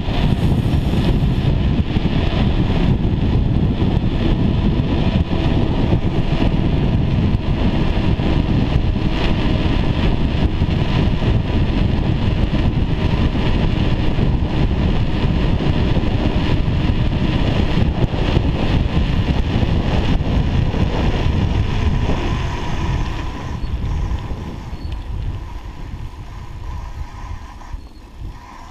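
Wind buffeting the microphone and tyres rolling over a snowy forest road during a downhill ride. The noise is loud and steady, then dies down over the last few seconds as the rider slows.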